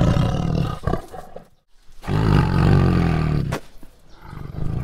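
Tiger snarling in deep, rough calls. One call runs on into the opening second, a second longer call comes about two seconds in, and a quieter third comes near the end.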